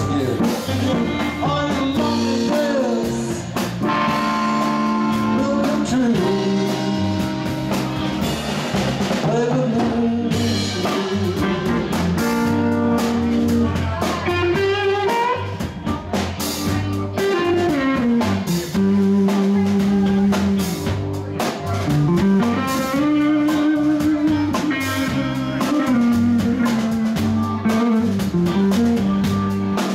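Live blues band playing: an electric guitar lead with bent, gliding notes over a steady bass line and a drum kit.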